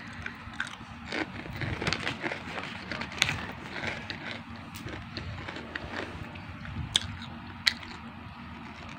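Close-up crunching and chewing of chicharon (fried pork rind): a dense run of crisp crackles in the first half, thinning out later, with two sharper cracks near the end.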